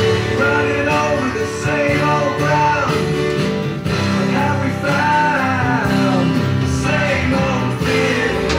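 Background music: a slow rock song with guitar and a singing voice.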